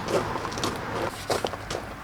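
A few short knocks and scuffs, about four in two seconds, as the forklift's battery is lifted out and carried.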